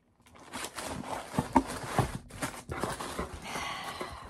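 Cardboard shoe box and sneakers being handled close to the microphone: a run of irregular knocks and thumps with rustling, the strongest thuds a little before the middle.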